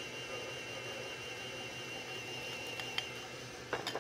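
Electric stand mixer running steadily as it beats cake batter, a steady motor hum with a constant high-pitched whine. A few light clicks near the end.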